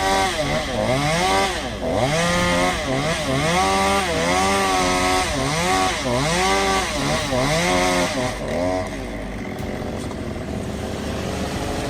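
Two-stroke chainsaw being revved as it cuts, its pitch rising and falling over and over, a bit more than once a second. After about eight and a half seconds it settles into a steadier, slightly quieter run.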